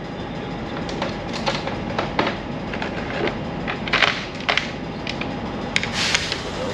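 Irregular metal clinks and knocks from a semi-trailer brake spider and brake shoes being handled on a steel floor, over steady background noise.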